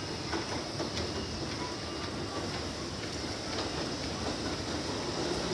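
Electric commuter train running on the tracks, a steady rumble with scattered wheel clicks over the rails, growing slightly louder near the end.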